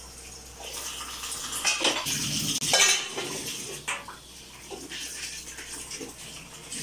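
Dishes and metal utensils clattering in a stainless steel sink as they are washed under a running tap, loudest about two to three seconds in. A purple plastic container is rinsed after that.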